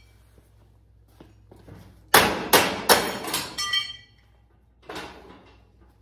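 Hammer striking the steel hardware of a sectional garage door: four or five sharp metal clanks with ringing, in quick succession about two seconds in, then a lighter knock near the end.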